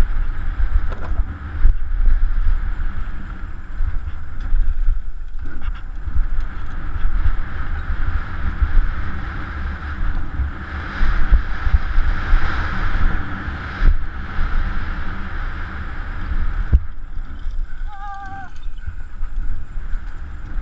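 Wind rushing over a helmet-mounted camera's microphone with a heavy rumble from a mountain bike rolling fast over a rough dirt trail. A short wavering high-pitched call sounds briefly about eighteen seconds in.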